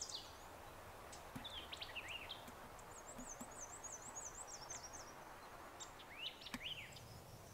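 Faint songbirds calling over a steady outdoor hiss: a few short phrases about one and a half seconds in, a high rapid trill from about three to five seconds, and more short notes near the end.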